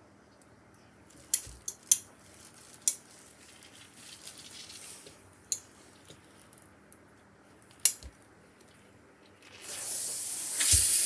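Steam iron at work on a pressing table: a few sharp knocks as the iron is set down and moved, then a loud, steady hiss of steam starting near the end.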